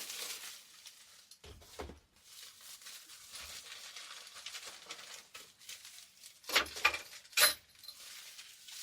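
Packaging rustling while a circular-saw and router table plate is unwrapped and handled, with several sharp clinks and knocks of the parts, the loudest a cluster about six and a half to seven and a half seconds in.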